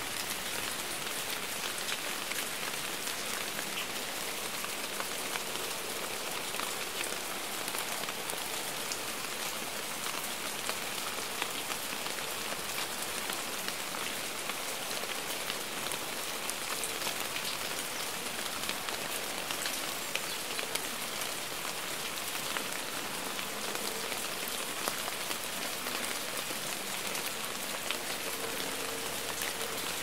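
Steady rain: an even hiss dense with small raindrop ticks.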